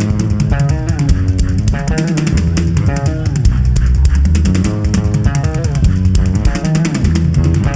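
Live worship band music: electric guitar lines over bass guitar and a drum kit with steady cymbal strikes.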